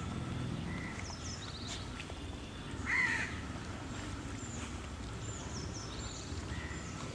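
Pit bull chewing raw chicken, a low, uneven gnawing sound, while birds call: one louder harsh call about three seconds in and short high chirps repeating several times.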